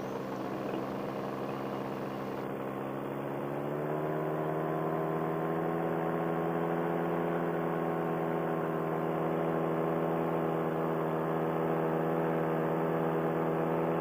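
Paramotor engine and propeller droning steadily in flight; the engine note rises slightly about four seconds in, then holds steady.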